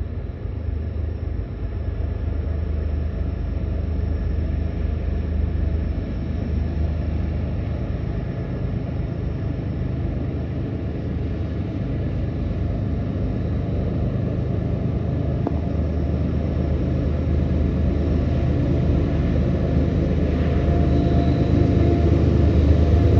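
Diesel locomotives of a long freight train rumbling steadily, slowly growing louder toward the end as they draw closer.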